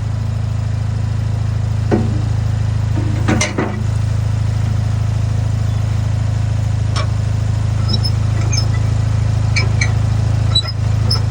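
Small backhoe's engine running steadily with a low hum, with a few short metal clinks and knocks from the pallet forks and bucket.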